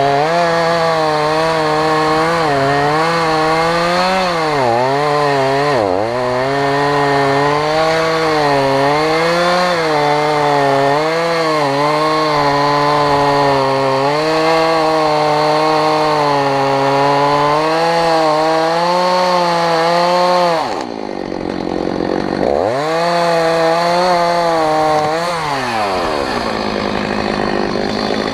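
Two-stroke chainsaw at full throttle cutting through a thick oak trunk, its pitch sagging under load a few times. About three-quarters of the way in it drops off the cut, revs again for a couple of seconds, then falls back to idle near the end.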